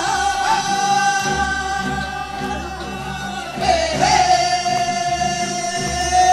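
Several performers singing together through microphones over instrumental accompaniment, holding one long note and then, about four seconds in, another.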